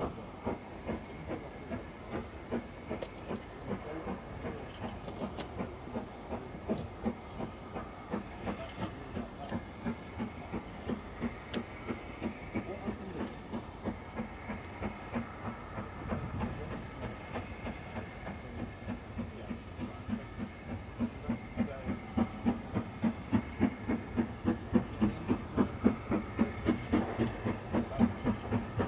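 A two-cylinder LMS Stanier 8F 2-8-0 steam locomotive working in the distance, its exhaust beating in a steady rhythm over a background hiss. The beats grow louder over the last several seconds as it approaches.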